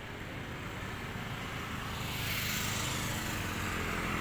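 A motor vehicle approaching on a road, its engine and tyre noise growing steadily louder.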